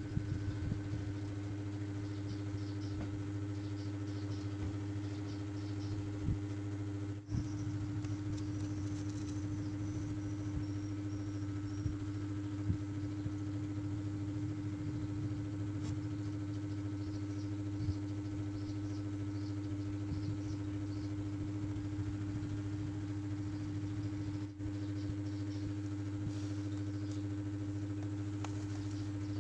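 A steady low electric hum, with small clicks and light taps scattered through it.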